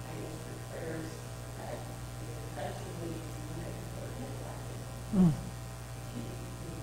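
Steady electrical mains hum, with faint, distant speech under it. About five seconds in, a brief, louder voice sound falls in pitch.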